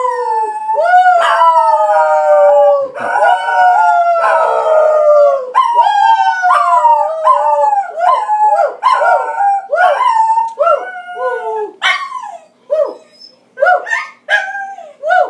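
Scottish terrier howling: long falling howls at first, then a run of short rising-and-falling howls that become shorter and more spaced out near the end.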